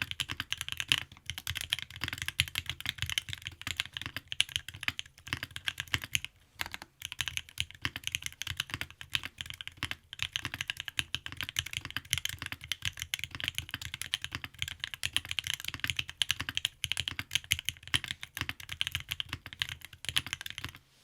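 Fast, continuous typing on a Bakeneko 65 custom mechanical keyboard with a brass plate, lubed Durock Alpaca linear switches and GMK keycaps: a dense run of key strikes. There is a brief pause about six seconds in, and the typing stops just before the end.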